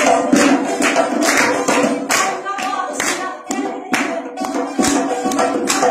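Live music for dancing: singing over sustained instrumental notes, driven by a quick, steady beat of sharp percussive strokes, about three a second.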